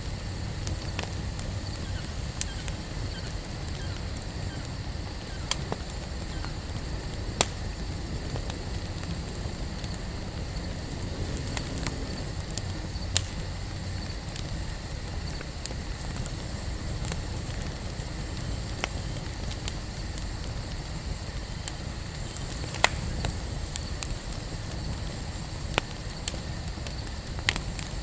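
Wood campfire burning: a steady low rush of flame with scattered sharp crackles and pops, a dozen or so, one louder pop about two-thirds of the way through.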